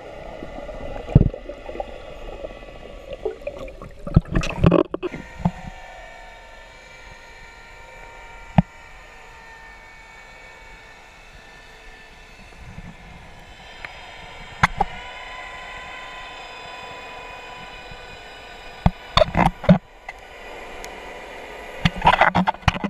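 Underwater audio through a diving camera's waterproof housing: a steady, muffled hum made of several tones, with sharp knocks and bumps against the housing now and then, clustered about four seconds in and near the end.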